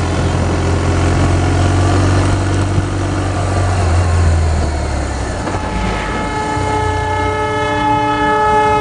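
A low steady rumble of travel on the road, then about six seconds in a train horn sounds one long, steady multi-note blast at a railway level crossing.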